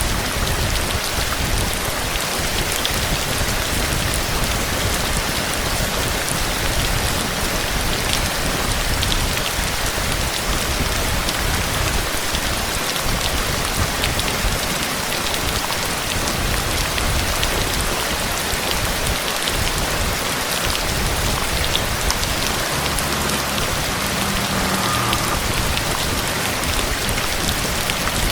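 Steady rain falling, a dense even hiss flecked with many small sharp drop ticks.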